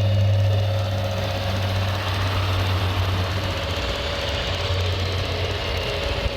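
Steady low engine-like drone of a radio-controlled construction machine, with a thin steady higher tone above it and a brief click at the very end.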